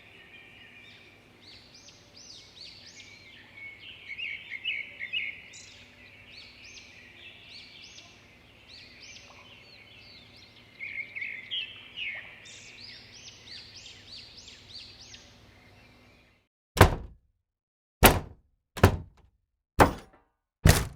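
Small birds chirping and singing over a faint steady background. After about sixteen seconds this cuts off to silence and five loud, separate thunks follow, roughly a second apart.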